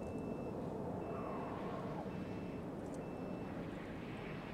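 A vehicle's reversing alarm beeping at a steady high pitch, about half a second on and half off, five beeps in all, over the steady low running of an engine.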